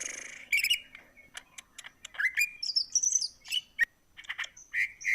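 Cucak ijo (green leafbird) in full song: a fast, varied run of sharp chirps, clicks, whistled slurs that rise and fall, and a short buzzy trill near the end.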